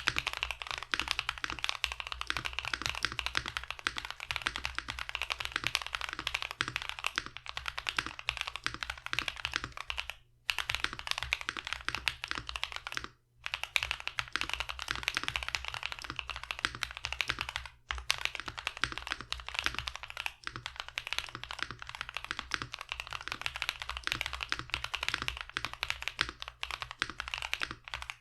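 Typing on a mechanical keyboard fitted with Akko CS Wine Red switches, which are factory-lubed light linear switches: a fast, steady run of keystrokes, with short breaks about ten, thirteen and eighteen seconds in.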